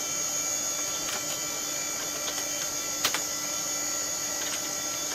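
Steady electrical hum with a high whine from running computer equipment, with a few faint keyboard keystroke clicks, the sharpest about three seconds in.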